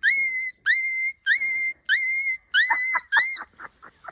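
A run of shrill whistle notes, about one every half second. Each note sweeps up quickly and then holds a steady pitch. Near the end the notes turn shorter, rising and falling, and then fade to a few faint ones.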